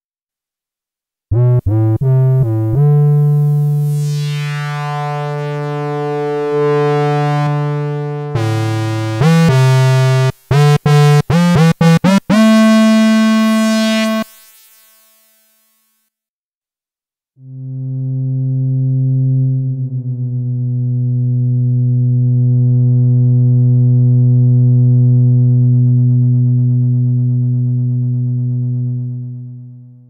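Behringer Vintage software synthesizer playing preset sounds on its own. First come a quick run of notes, a held low chord, a burst of short staccato notes and a held note that dies away. After a short pause, a sustained low chord swells in slowly and fades out near the end.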